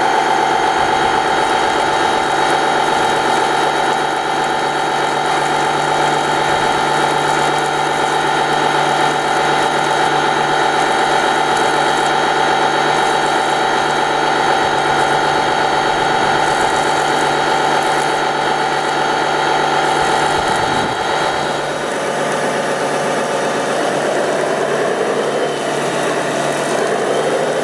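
A radio-controlled fire truck running with a steady, engine-like hum; about three quarters of the way through the hum changes and its pitch starts sliding up and down.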